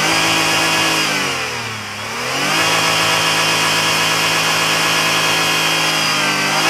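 2002 Toyota Avalon's V6 engine revved in park. The pitch climbs, sags for a moment about two seconds in, then rises again and is held steady at high revs.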